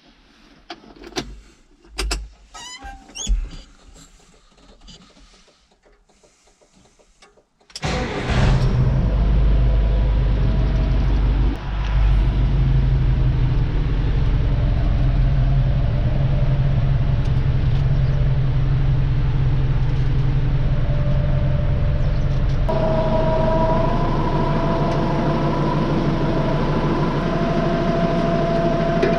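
Scattered knocks and clicks, then a large engine starts running steadily about eight seconds in, with a low hum; its note changes and steady higher tones come in about 23 seconds in.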